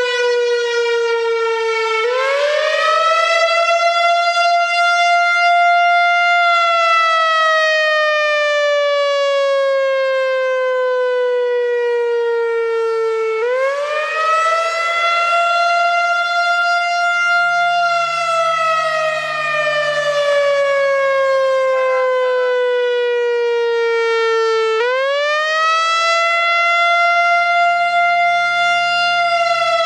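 Whelen WPS-4004 electronic outdoor warning siren sounding its wail tone on a monthly test: a loud, steady wail whose pitch rises over about four seconds, holds briefly, then falls slowly before climbing again. It rises three times, about two, thirteen and twenty-five seconds in.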